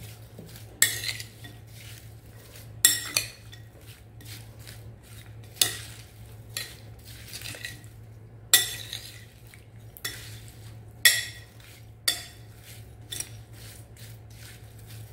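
Metal spoon stirring and tossing sliced cucumbers and onions in a glass bowl, with sharp clinks of the spoon against the glass every second or two over a soft wet rustle. A steady low hum runs underneath.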